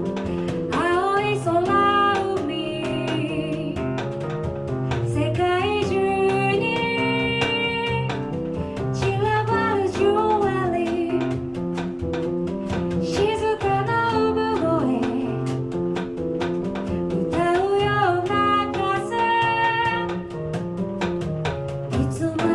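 A woman singing a slow melodic song with vibrato-laden phrases, accompanied by piano chords and a drum kit played lightly with cymbals.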